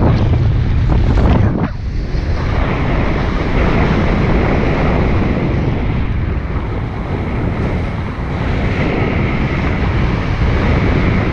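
Wind rushing over the camera microphone in flight under a paraglider: a steady, loud, low buffeting rush, with a few brief crackles about a second in.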